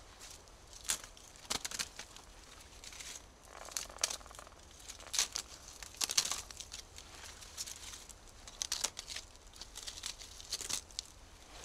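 Birch bark being peeled and torn off a birch trunk by hand: irregular dry crackling and tearing sounds.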